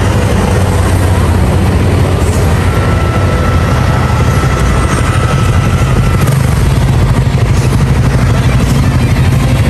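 Riding noise from a Honda Forza 250 scooter under way: steady wind rumble on the microphone mixed with the engine and road noise.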